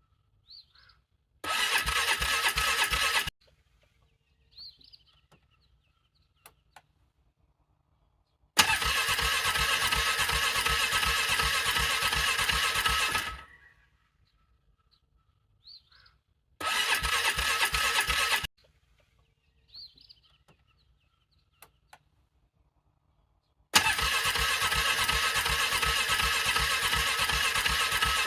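ATV engine being cranked on its electric starter in freezing cold, in four separate bursts of a few seconds each, the longest about five seconds; it does not catch and fire in any of them, the struggle of a cold-soaked engine to start.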